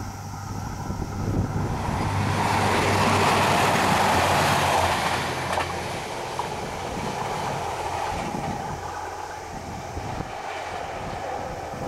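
A train passing: its running noise swells to a peak a few seconds in and then fades away, with a couple of sharp clicks as it goes by.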